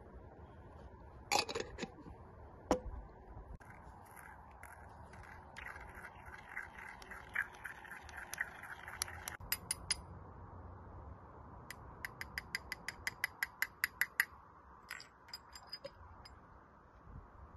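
A small hand spice grinder is twisted over a glass bowl to grind saffron. It gives a run of fine rapid ticks, then an even series of sharp clicks at about six a second. Two sharp knocks of small containers come in the first few seconds.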